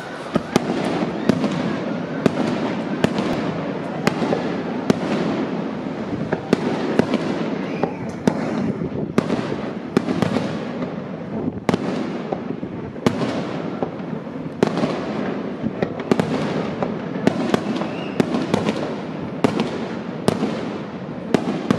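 Fireworks display: aerial shells bursting in a rapid string of sharp bangs, more than one a second, over a continuous rumble.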